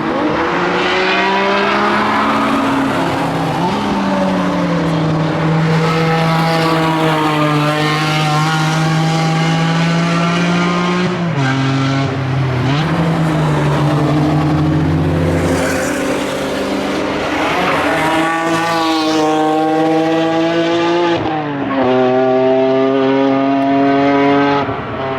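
BMW E46 M3 engines at hard throttle going past on track, the engine note climbing with revs and dropping abruptly at gear changes, about 11 and 21 seconds in.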